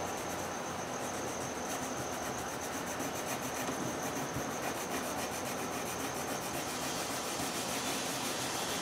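Coloured pencil scratching on paper in quick back-and-forth strokes as it shades in a drawing.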